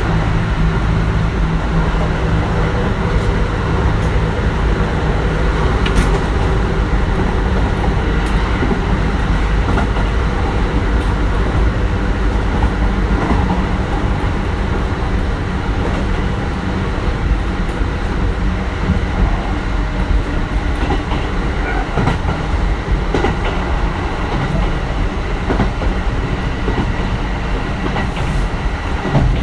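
Kintetsu 1420 series electric train running at speed, heard from on board: a steady low rumble of wheels on rail, with occasional sharp clicks from rail joints.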